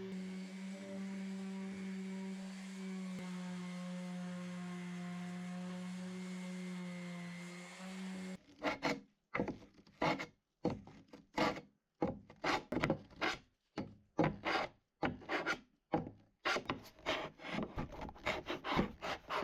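A steady electric hum for about the first eight seconds. Then sandpaper is rubbed by hand over oak wood in quick back-and-forth strokes, about two a second: sanding with 120-grit paper.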